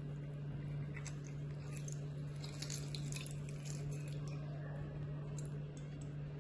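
Lemon halves pressed in a hand-held lemon squeezer, with juice dripping into a bowl and faint squelches and clicks. A steady low hum runs under it.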